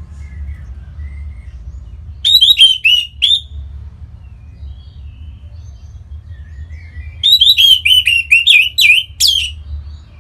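Orange-headed thrush singing: two bursts of quick, sliding whistled notes, a short phrase about two seconds in and a longer one from about seven seconds, ending in a high upward note.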